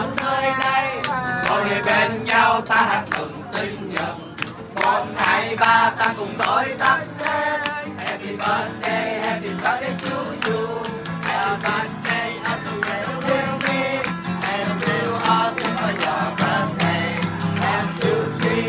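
Several voices singing together over guitar backing music, with hands clapping in time to the beat.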